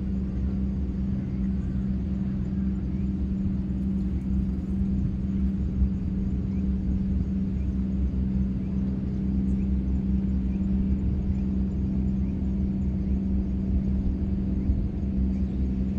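A steady, low engine drone at a constant pitch, with a deep rumble beneath it and no change in speed.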